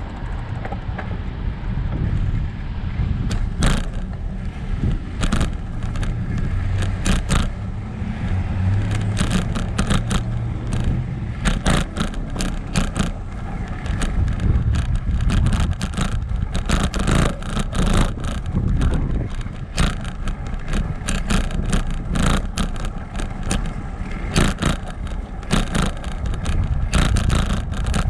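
Bicycle rolling over a brick-paved street, mostly a steady low rumble of tyres and wind on the handlebar-mounted microphone. Over it come frequent sharp clicks and rattles as the bike jolts over the bricks, growing more frequent about a dozen seconds in.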